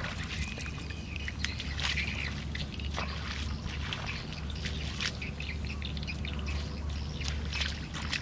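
Outdoor ambience: a steady low wind rumble on the microphone, with scattered small clicks and faint bird calls.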